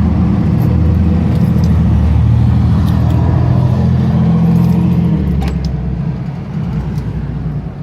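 Low engine rumble of a motor vehicle on the road close by, easing off over the last couple of seconds, with a few light clicks on top.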